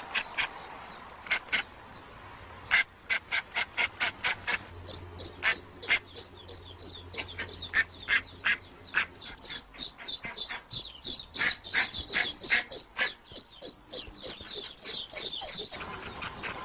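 Birds calling: many short, sharp calls, with a fast series of high chirps from about five seconds in until shortly before the end.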